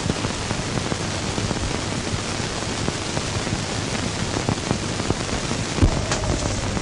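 Steady hiss with scattered clicks and crackles, the surface noise of a worn old film soundtrack, with a louder click near the end and a faint held tone coming in just after it.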